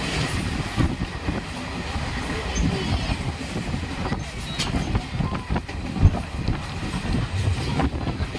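Train running on the track: a steady low rumble with an irregular clatter of wheels over the rails, and one sharper knock about six seconds in.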